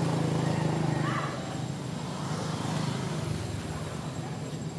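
A motor vehicle's engine humming steadily, then fading away about a second in.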